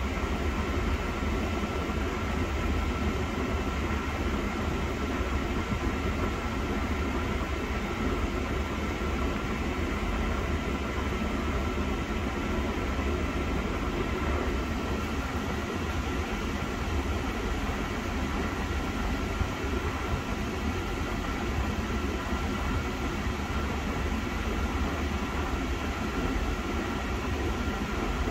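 Steady blowing of the air-conditioning blower at the dash vents, over the low hum of a 1986 Mercedes-Benz 560SEL's V8 idling, heard inside the cabin, with the freshly recharged R134a air conditioning running.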